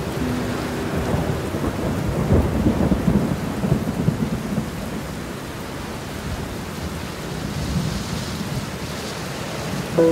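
Heavy rain falling steadily, with a long roll of thunder that swells about two seconds in and dies away a few seconds later.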